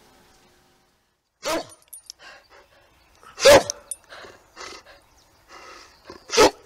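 An old yellow Labrador retriever barking three times, each a single short bark, two to three seconds apart, with softer huffs between the barks.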